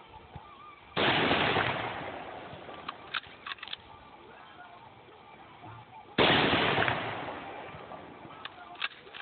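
Two rifle shots about five seconds apart, each fading out over a second or so. After each one comes a short run of sharp metallic clicks as the bolt is worked for the next round.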